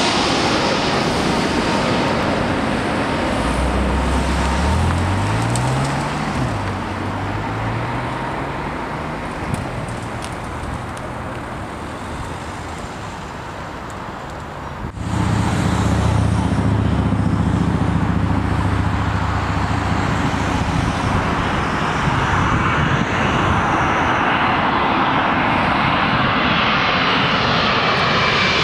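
Jet airliners on final approach. The engine noise of one fades steadily, then after an abrupt cut about halfway another's engines come in loud and grow louder and hissier as it nears.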